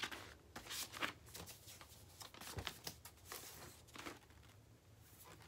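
Hands handling a vinyl LP and its paper sleeve: quiet, irregular rustling with small clicks and soft knocks as the record is worked out of its sleeve.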